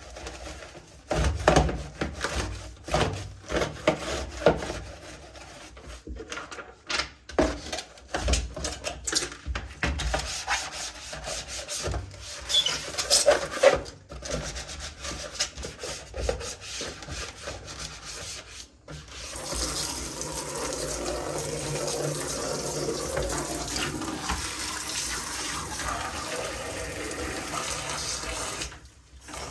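Irregular scrubbing and rubbing strokes from cleaning a keyboard. After a short break about two-thirds in, these give way to steady running water, as parts are rinsed.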